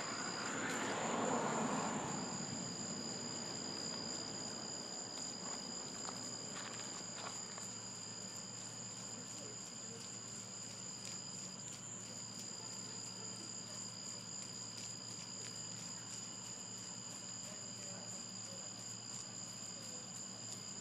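Night insects chirring steadily in two unbroken high tones. A brief rush of noise comes in the first two seconds.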